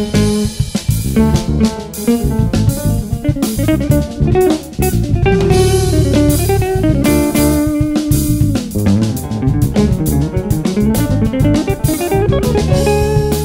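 Jazz quartet music: guitar lines over bass guitar and drum kit in a busy, intricate groove.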